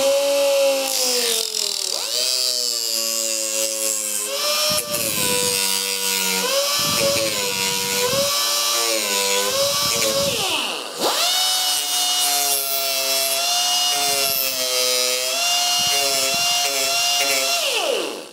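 Small air-powered disc sander running against cured polyester fibreglass repair, a steady high whine whose pitch sags and recovers as it is pressed on and eased off. The whine dips briefly about eleven seconds in, then runs on and stops at the end.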